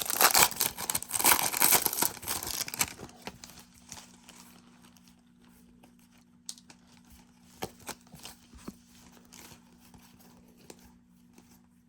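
A foil trading-card pack torn open, the wrapper crinkling and tearing for about the first three seconds. Then faint scattered clicks and taps as the cards are handled.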